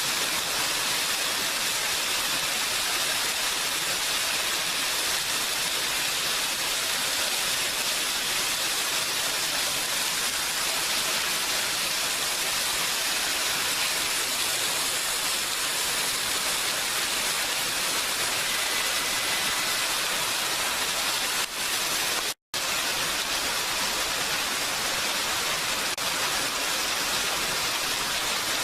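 Steady, even rain, with one split-second total dropout in the sound about three-quarters of the way through.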